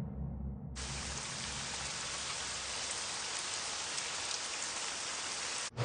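Steady rain falling, an even hiss that starts abruptly about a second in as the last low notes of music fade, and cuts off sharply just before the end.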